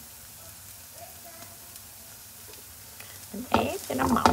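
Bánh chưng (sticky rice cake) frying slowly in oil in a pan to crisp it, a faint steady sizzle. About three and a half seconds in, a spatula starts scraping and pressing against the cake and pan in loud, sharp, irregular strokes.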